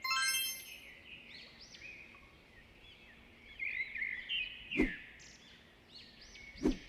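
Birds chirping over a steady outdoor background, opening with a bright ringing chime. Two short thuds break in, a little under five seconds in and again near the end.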